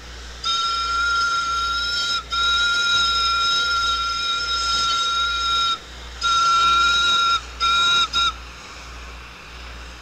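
Steam locomotive whistle blowing a series of blasts on one high, steady note: two long blasts, then a shorter one and two quick short toots that end about eight seconds in.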